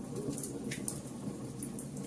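Fire crackling: irregular sharp pops and snaps, a few a second, over a steady low rumble of burning.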